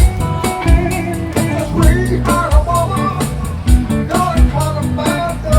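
Live band playing a song, with a steady beat and a guitar carrying the melody.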